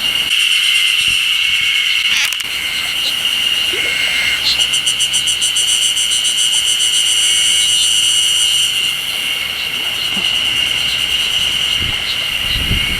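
Cicadas singing in chorus: a loud, steady high-pitched buzz, with a faster pulsing trill layered over it for several seconds in the middle.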